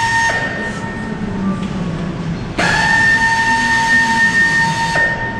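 A machine's steady whine over a hiss: it stops just after the start, then spins up sharply about two and a half seconds in, holds one pitch, and cuts off about five seconds in.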